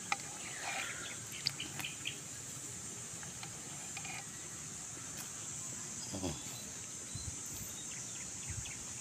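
Insects, crickets by the sound of it, droning steadily in one high band, with a few faint chirps and light clicks in the first couple of seconds and a brief low call about six seconds in.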